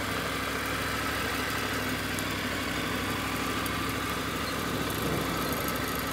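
Motorcycle engine running steadily at low speed, close to idle with no throttle applied.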